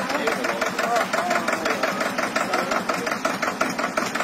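Tractor's diesel engine running steadily under load with a fast, even knocking beat.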